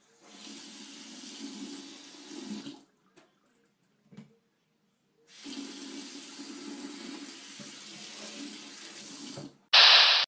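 Kitchen faucet running into a stainless steel sink, turned on for about two and a half seconds, off, then on again for about four seconds before being shut off. Right after, a brief loud transition sound.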